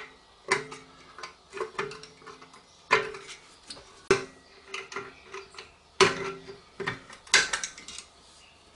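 Irregular metallic clicks of a screwdriver turning the drum-in-hat handbrake shoe adjuster through the access port in a rear brake disc, as the adjuster is wound towards tight. Some clicks set the steel disc briefly ringing.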